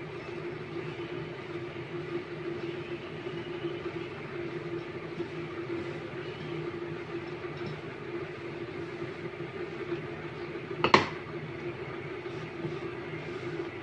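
A wooden hand block rubbed back and forth along the edge of a melamine particle-board door, over a steady low hum. One sharp knock about eleven seconds in is the loudest sound.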